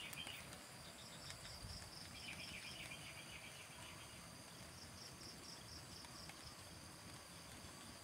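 Faint insects chirping: high, rhythmic chirps several times a second in runs of about two seconds, and a lower pulsed trill joining for a moment, over a low steady hiss.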